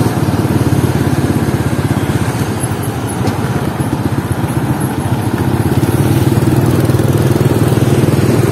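Small motorcycle engine running at a steady riding pace, heard from on the bike itself, with a fast, even engine beat that eases a little a couple of seconds in before steadying again.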